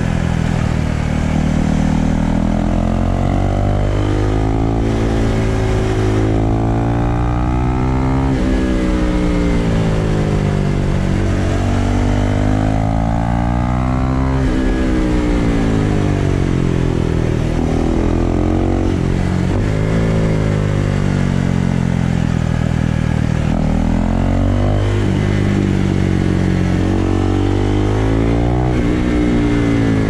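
Husqvarna Vitpilen 401's single-cylinder engine pulling under way on board the bike. Its pitch climbs under throttle and falls back again, several times over, with a few sudden drops.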